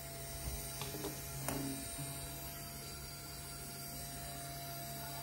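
Tamagawa 200 W brushless servo motor spinning unloaded at high speed, around 8,500 rpm, on a brushless controller: a steady low hum with a thin steady whine above it, smooth and without vibration. A few light clicks from handling come in the first two seconds.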